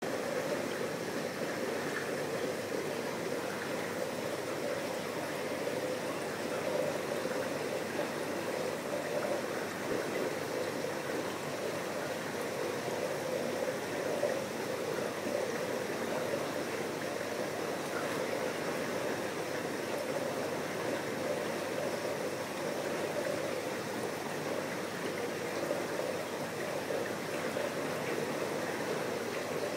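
Saltwater aquarium's circulating water: a steady, unbroken rush and trickle of pumped water.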